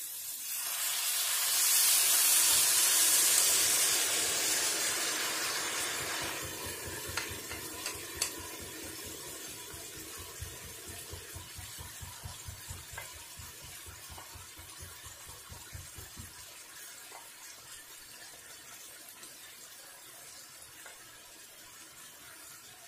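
Soy-and-honey stir fry sauce poured into a hot skillet of sliced kielbasa, peppers and onions sizzles loudly as it hits the pan, then the sizzle fades gradually to a quieter simmer.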